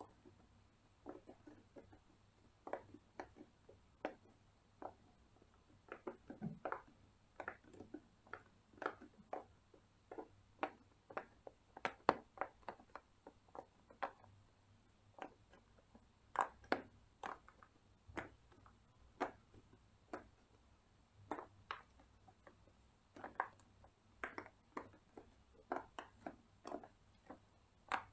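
Bubbles of a large silicone pop-it fidget toy being pressed in one after another: an irregular run of short soft pops, two or three a second.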